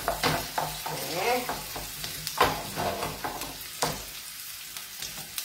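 Onion, garlic and chili frying in oil in a steel pan, sizzling steadily while a spoon stirs and scrapes them around. A few sharper knocks come from the spoon hitting the pan.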